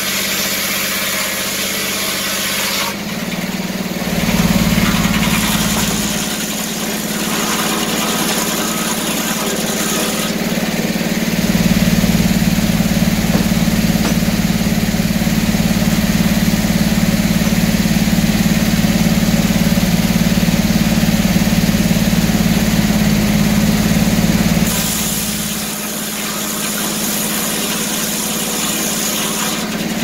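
Circular sawmill running, its large head saw spinning as oak is fed through it and sawn into boards. The machinery runs steadily throughout, and for a dozen seconds in the middle it grows louder and deeper before easing off again.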